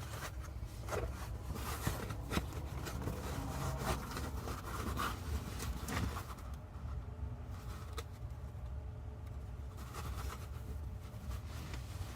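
Hands working inside a car seat back: scattered rustling of upholstery and foam with a few sharp clicks of plastic, over a low steady rumble.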